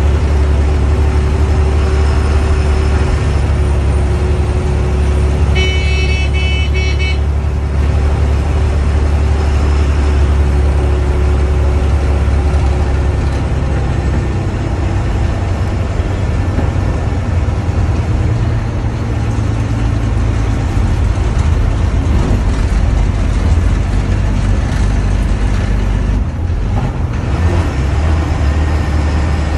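KSRTC Sarige bus running on the road: a steady, loud low engine and road rumble. A horn sounds once, for about a second and a half, about six seconds in.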